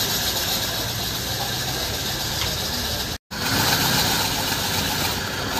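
Steady mechanical running noise of a motor, with a low hum under it, cut off for an instant about three seconds in before running on.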